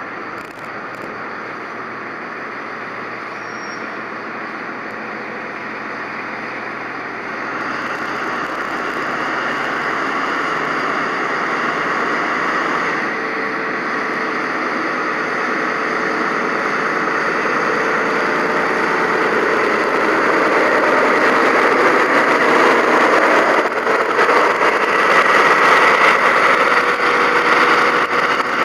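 Diesel engine of a British Rail Class 43 HST power car working as the train pulls away from a standstill and draws past, growing steadily louder. The level steps up about eight seconds in.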